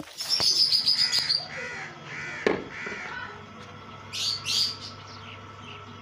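A crow cawing four times in quick succession, with other small birds chirping higher up around it.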